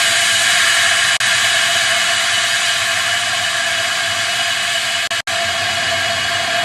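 Steady loud rushing hiss with a faint steady whistle, picked up by the camera riding in a high-power rocket's nose cone; the sound drops out for an instant about a second in and again near the five-second mark.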